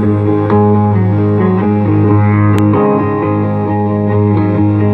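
Amplified hollow-body electric guitar played solo: a picked line of changing notes over a steady low note.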